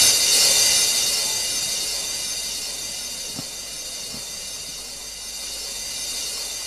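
Audience applause, loudest at the start and dying away over the next few seconds.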